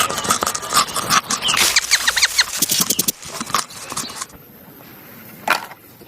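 Scrubbing, rubbing and clicking as a muddy plastic toy is washed, with a quick run of short squeaks about two seconds in. It dies down after about four seconds, leaving one more click near the end.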